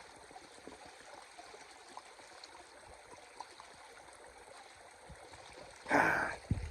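A creek flowing steadily, with a short loud rush of noise about six seconds in, followed by a couple of sharp knocks.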